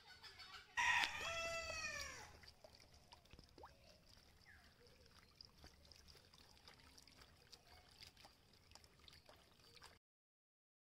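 A cat meows once about a second in, one long call falling in pitch. Faint trickling water follows, and the sound cuts out near the end.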